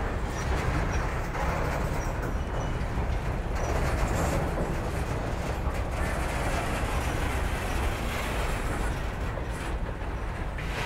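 Freight train of flatcars loaded with containers rolling past: a steady rumble of steel wheels on rails, with a few brief knocks along the way.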